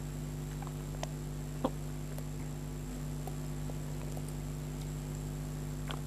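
Sips and swallows from a mug close to the microphone: a few soft mouth clicks and gulps, one sharper about a second and a half in, over a steady electrical hum.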